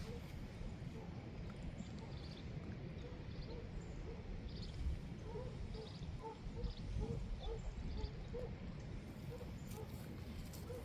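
Neighbour's dogs barking repeatedly in the distance, short barks about one or two a second, over a low steady rumble.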